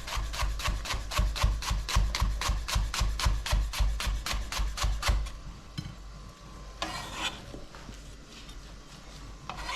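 Kitchen knife chopping spring onions on a cutting board in quick, even strokes, about four a second, stopping about five seconds in. A couple of short, quieter scrapes follow.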